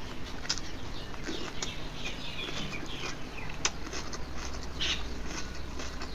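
Close-miked eating sounds: wet chewing and mouth smacks with scattered small clicks, from a mouthful of dal and rice.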